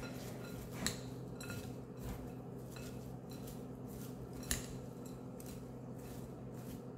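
A utensil stirring chopped broccoli salad in a bowl: soft irregular scrapes and light clinks against the bowl, over a steady low hum.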